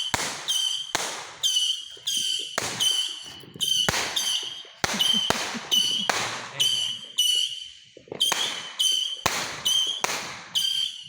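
A rapid series of fireworks bangs, about two a second with a short break about eight seconds in, each bang followed by a brief high ringing tone.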